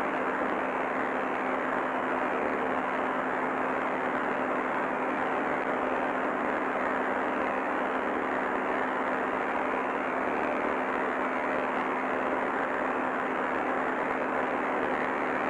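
Steady static hiss with a low hum under it, unchanging throughout.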